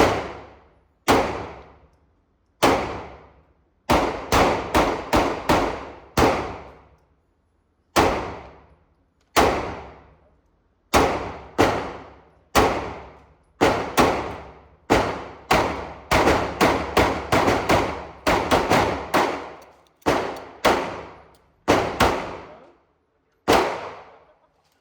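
Repeated gunshots, about thirty sharp cracks at uneven spacing, each followed by a long echoing tail, with a quick string of shots in the middle.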